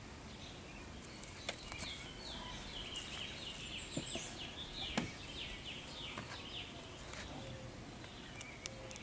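A songbird singing a run of quick, descending chirps, repeated several times in the middle, with a few sharp clicks.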